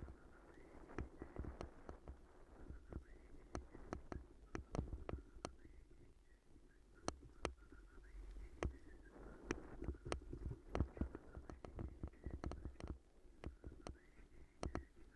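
Bicycle rolling over a rough gravel path: a low tyre rumble with many irregular sharp knocks and rattles as the bike and its handlebar-mounted camera jolt over the stones.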